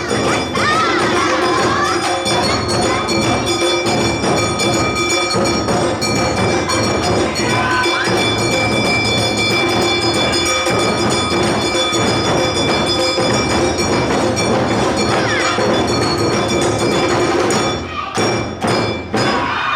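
Awa odori band music: drums, a clanging bell-gong and a flute playing the lively festival dance rhythm, breaking up into separate hits near the end.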